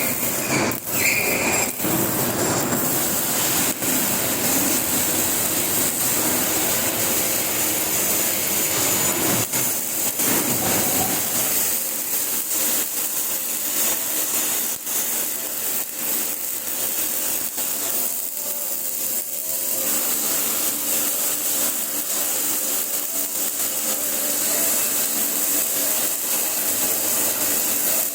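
MIG welding arc crackling and hissing steadily while a bead is run, with a few brief dips.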